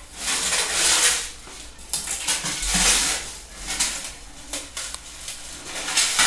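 Handling noise from assembling a kitchen cabinet: several second-long scraping, rustling swells with a few light knocks and clinks between them.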